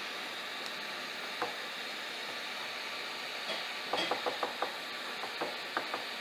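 Small, light clicks and taps of a tool handling flux on a PS4 circuit board around the HDMI encoder chip: one about a second and a half in, then a scattered run of them in the second half, over a steady faint hiss.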